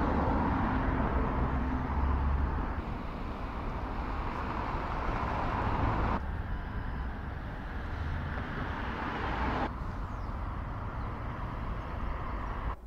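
Outdoor street ambience of road traffic: a steady noisy hiss over a low rumble. It changes abruptly about every three seconds as one recording cuts to the next.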